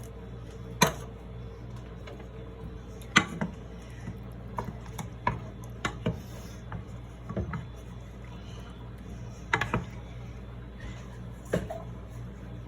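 Scattered knocks and clinks of a metal can and utensils against a cooking pot as a can of diced tomatoes is emptied in, over a steady low hum.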